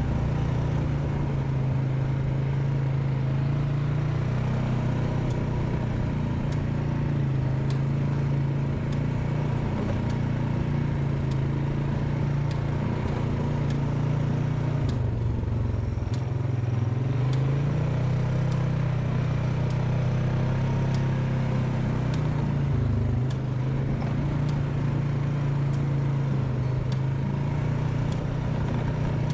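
ATV engine running steadily as it rides along a sand and dirt trail. The engine note drops and then climbs about halfway through and dips briefly again a little later, with scattered faint clicks over it.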